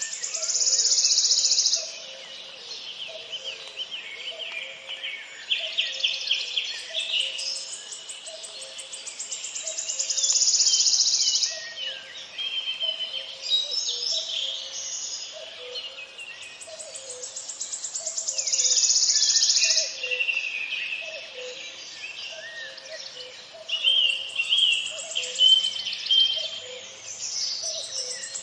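Birds chirping and singing, with a high buzzing insect trill that swells and fades about every nine seconds, and a faint low note repeated about once a second underneath.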